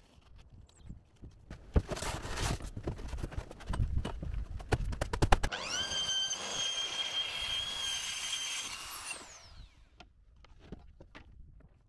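A power saw on a guide rail (track saw) winds up to full speed, runs at a steady high whine for about three and a half seconds, then spins down. Before it, the rail and tool are handled, with scattered clicks and knocks.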